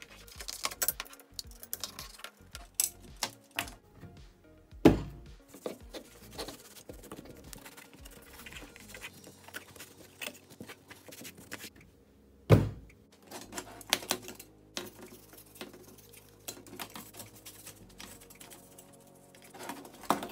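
Clicks, taps and knocks of Technics SU-Z15 amplifier parts being handled on a workbench: a metal front panel with its circuit boards, and a power transformer being wiped with a cloth. Two louder thumps stand out, one about a quarter of the way in and one just past the middle. Quiet background music plays underneath.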